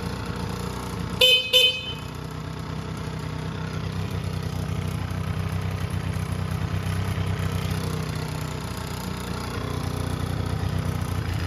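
Yamaha Razz scooter's small two-stroke engine running unevenly at idle, barely keeping going; the owner traces its poor running to a vacuum leak. Two short horn beeps sound just over a second in.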